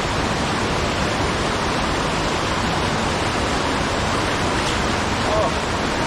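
Waterfall's steady, loud rush of falling water, an even noise with no breaks.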